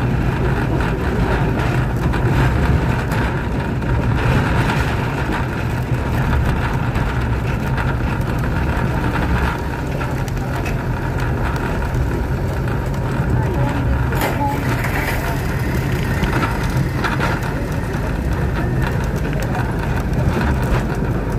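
Small narrow-gauge forest railway train running, a steady mechanical rumble of its engine and wheels on the rails, with a single sharp click about two-thirds of the way through.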